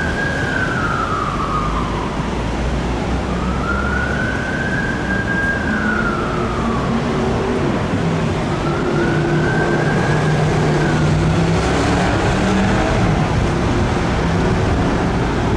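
Ambulance siren on a wail, its pitch slowly rising and falling about every three and a half seconds, growing fainter and dying away about three-quarters of the way in as the ambulance draws off. Road traffic engines run underneath throughout.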